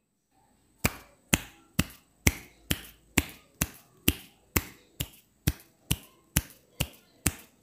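A steady series of sharp clicks, about two a second, starting about a second in.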